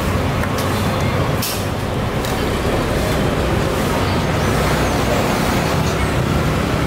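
Steady road traffic, with vehicle engines running close by and a low hum throughout. Two short hisses come about a second and a half and two seconds in.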